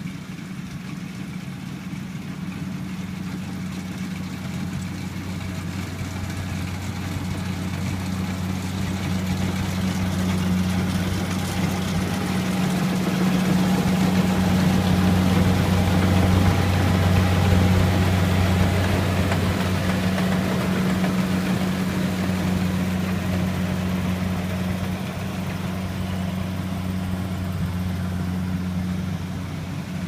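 Kubota crawler combine harvester's diesel engine running steadily under load while it cuts rice, a deep, even hum that grows louder as the machine passes close by about halfway through, then fades as it moves away.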